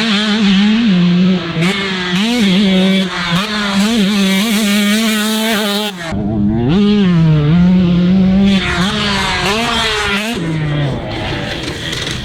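Two-stroke dirt bike engine running hard under a rider, its pitch wavering with throttle and gear changes. It cuts out for an instant about halfway through, then picks up and rises again.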